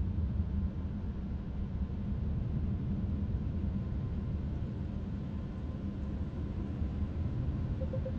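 Steady low rumble of automatic car-wash machinery heard from inside a car's closed cabin. A few quick electronic beeps come just before the end.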